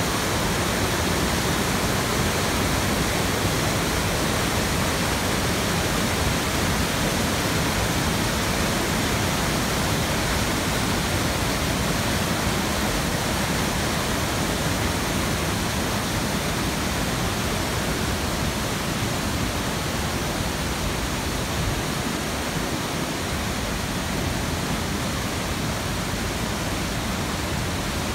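Whitewater of a mountain creek cascading over boulders and small falls: a steady, full rush of water with no break. The creek is running high after heavy rain.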